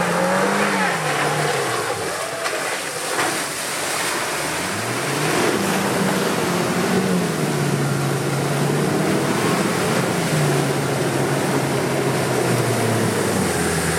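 Land Rover Defender's engine pulling hard as the SUV wades through a deep, muddy water-filled rut, with water surging and splashing against the body. The revs climb about five seconds in, hold, and drop back to a lower steady note about ten seconds in.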